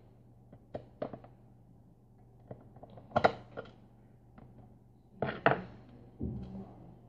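Clicks and knocks of a hand tool and wiring being handled on a workbench, with two louder clattering knocks about three seconds and five and a half seconds in.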